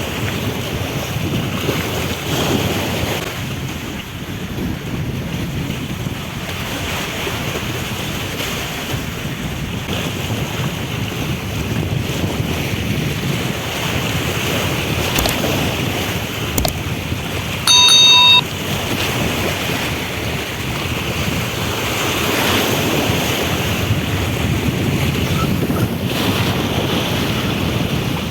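Wind buffeting the microphone over sea waves washing, a steady rushing noise. A short electronic beep sounds about eighteen seconds in.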